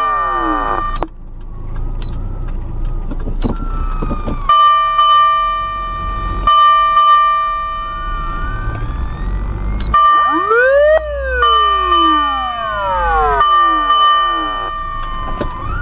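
Osaka Siren MK-8 electronic siren amplifier sounding a series of siren tones: steady high tones that stop and start, a wail that rises and falls about ten seconds in, and repeated falling sweeps. A low rumble from the moving vehicle runs underneath.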